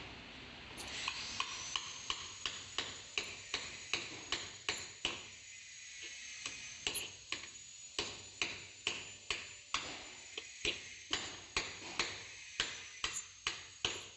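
Hammer striking a steel drift to drive a one-way bearing home into its seat: a steady run of sharp metallic taps, about two a second, each with a short ring.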